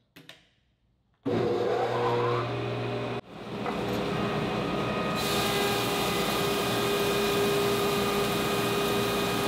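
A button click, then the Oliver 4470 25-inch planer's motor starts and spins up with a rising whine. After a brief cutoff the planer runs steadily, and from about five seconds in a board fed through its Byrd Shelix helical carbide-insert cutterhead adds a louder, higher hiss of cutting.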